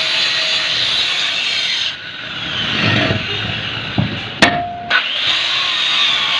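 Angle grinder cutting through a steel bar, a steady high grinding hiss. It breaks off about two seconds in while the bar is moved, with a few metal knocks and a short metallic ring, then cutting resumes about five seconds in.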